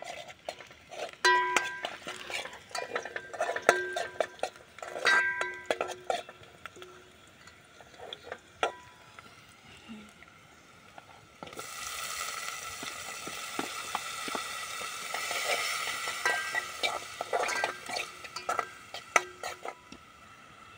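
A metal spoon stirring onions frying in oil in a metal pot, knocking against the pot with ringing clinks. About eleven seconds in, a loud steady sizzle starts as chopped tomatoes go into the hot oil, with more stirring clinks over it.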